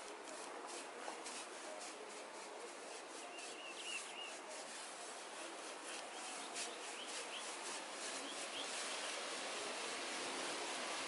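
A small hand trowel scraping and rubbing over the surface of a cast cement baluster in many short, repeated strokes.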